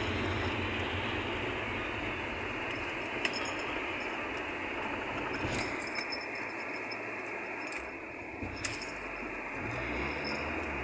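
Car driving over a wet road, heard from inside the cabin: a steady hiss of tyres on wet pavement over a low engine and road rumble, with a few light clicks about three, five and a half and eight and a half seconds in.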